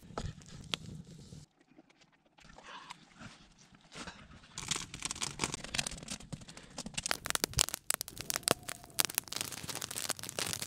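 Wood campfire crackling and popping, with dense irregular pops over a hiss through the second half after a brief near-quiet stretch.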